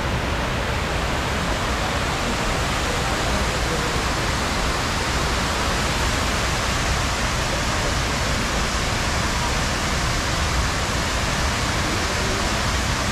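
Steady rushing of water cascading down the walls of the 9/11 Memorial reflecting pool, a large man-made waterfall.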